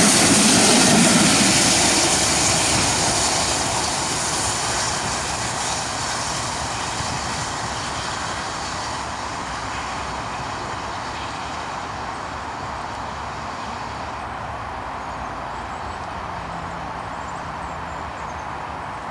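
Steam locomotive 60163 Tornado, an LNER Peppercorn A1 Pacific, and its support coach running past and away down the line. The rumble of wheels on rails fades steadily as the train recedes.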